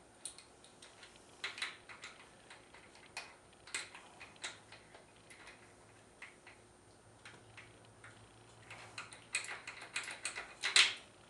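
Light, irregular metallic clicks and ticks as the connecting-rod cap nuts of a Ford 390 FE V8 are threaded on by hand against the rod cap. There is a quicker run of louder clicks near the end.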